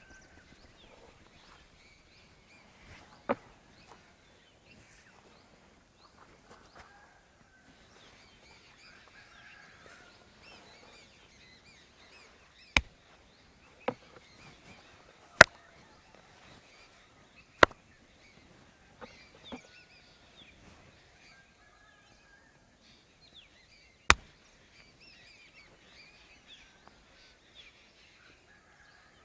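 About six sharp, isolated smacks of hands striking during a head massage, spaced irregularly, with a cluster of four in the middle. Birds chirp faintly throughout.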